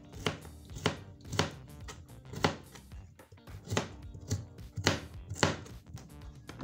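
Kitchen knife dicing raw carrot on a plastic cutting board: a run of sharp knocks as the blade cuts through and hits the board, roughly one to two a second.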